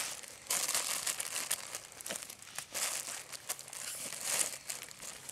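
Mylar foil survival blanket crinkling and rustling under hands handling a dead bird laid on it, in irregular rustles with a few sharper crackles.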